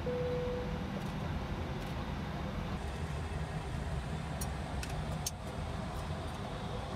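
Steady low rumble of an Airbus airliner's flight deck on the ground, with its systems and ventilation running. A brief steady tone sounds at the start, and a few light clicks come about halfway through.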